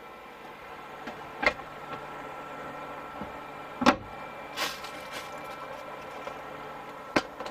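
Sharp knocks and clatter of objects being handled and moved while rummaging for a part: three distinct knocks, about a second and a half in, near four seconds and near the end, with a short rustle just after the middle. A faint steady hum runs underneath.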